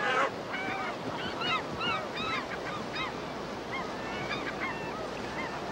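Gulls calling over and over, many short squawks rising and falling and overlapping one another, over the steady rush of a fast river. A brief burst of noise right at the start is the loudest moment.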